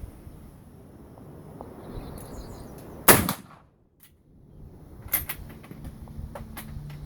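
A single loud shot from a single-shot Trapdoor rifle about three seconds in, followed a couple of seconds later by several sharp metallic clicks.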